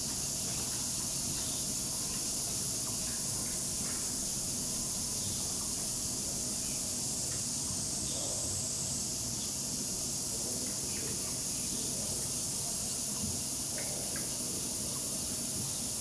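A steady high-pitched hiss that holds unchanged throughout, with a few faint scattered ticks.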